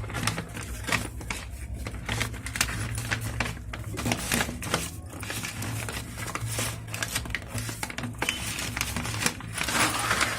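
Brown paper bag crinkling and rustling in quick, irregular crackles as it is folded shut over the chickpeas, louder near the end, over a steady low hum.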